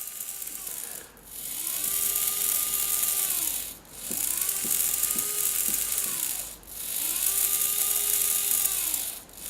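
Small hobby servo motor driven by the breadboard ATmega328P, its gears whirring as it sweeps three times with short pauses between. Each sweep rises in pitch as the motor speeds up and falls as it slows, and a few clicks come in the middle sweep.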